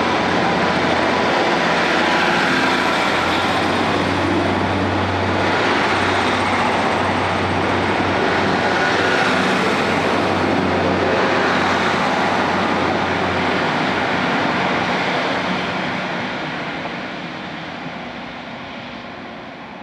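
Class 150 Sprinter diesel multiple unit pulling out of the station: its diesel engines running under power with a steady low drone and wheels on the rails, then fading over the last few seconds as the train draws away.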